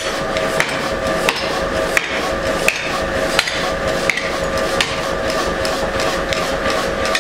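Power hammer striking a flat steel bar held in tongs on its die. The blows come at an even rate of about three every two seconds, over the machine's steady hum.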